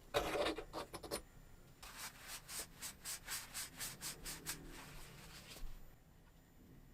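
Something rubbed or scraped in short, even strokes, about three a second, after a brief louder scuffle at the start.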